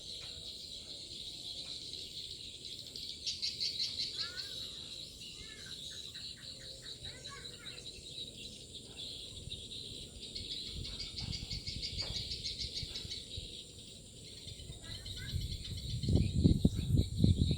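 Steady chorus of crickets and other insects, with edible-nest swiftlets twittering in short bursts of chirps over it. A burst of low rumbling comes near the end.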